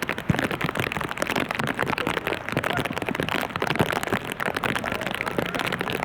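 Rain falling, a dense steady crackle of many drops.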